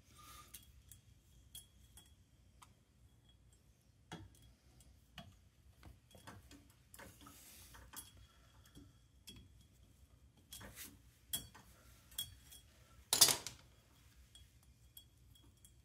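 Faint, scattered metal clicks and taps of pliers and fingers bending the legs of a cotter pin over a castle nut on an ATV wheel hub, with a louder clink about thirteen seconds in.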